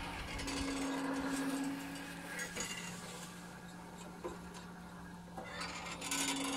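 Century-old rod-line oil well pump linkage: rusty iron pull rods and a bell crank rocking back and forth, with a long steady squeak on the stroke about half a second in and again near the end, and light metallic clinks between. A steady low hum runs underneath.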